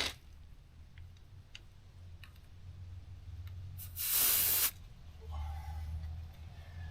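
Short hiss of air escaping from a motorcycle tire's valve stem about four seconds in, as a hand air pressure gauge is pressed onto it to read the pressure.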